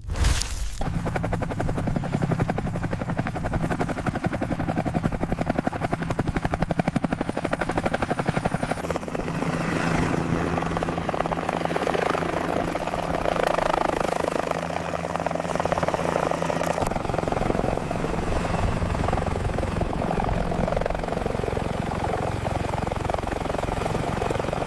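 Helicopter flying, its rotor blades beating rapidly over a steady engine drone. It starts suddenly, and the sound shifts twice, at about 9 and 17 seconds in.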